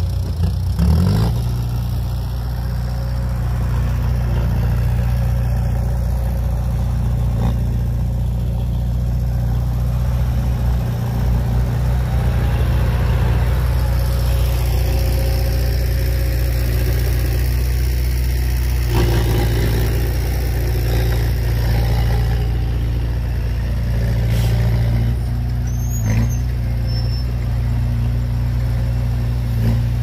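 Heavy machinery diesel engine running steadily at an even speed, with a few brief knocks over it.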